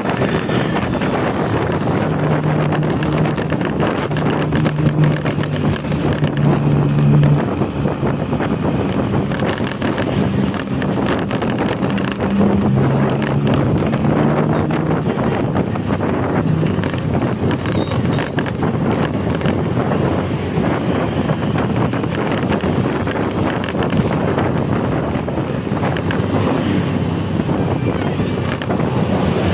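Vehicle engine running at road speed under heavy wind noise on the microphone. Its low hum shifts pitch up and down several times in the first half, then sinks into the wind and road noise.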